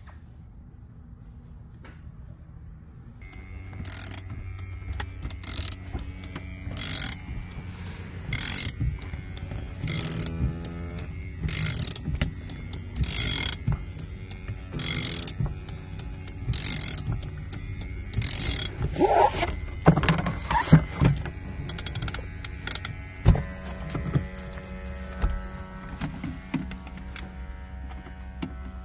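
Equalizer Viper windshield cord-removal tool being wound in short, regular strokes, roughly one every second and a half, drawing its cutting cord through the windshield's urethane. About two-thirds of the way through there is a brief rising and falling squeal. A low steady hum runs underneath.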